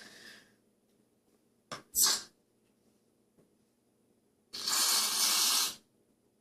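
Aerosol can of Barbasol shaving cream hissing as it sprays: one steady burst of a little over a second, starting about four and a half seconds in. It comes after two short, breathy puffs near the start and about two seconds in.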